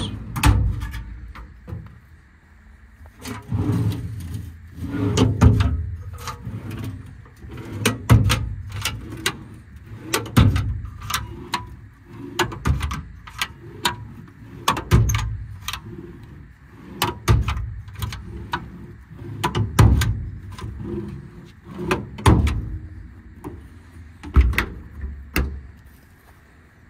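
Metal tool drawers in a truck service-body compartment being pulled open and pushed shut one after another, their latch bars clacking. It comes as a run of sharp clacks and low rumbles every couple of seconds.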